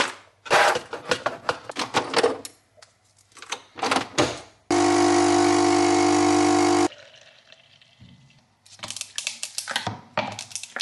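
Clicks and knocks of coffee capsules being handled, then a Nespresso capsule machine's pump buzzing steadily and loudly for about two seconds as it brews, cutting off abruptly. Near the end, ice cubes knock into a plastic cup.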